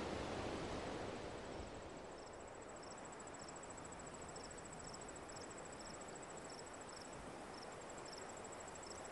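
Faint outdoor insect sounds: a steady high trill with a separate short chirp repeating about every half second, over a soft hiss that fades during the first two seconds.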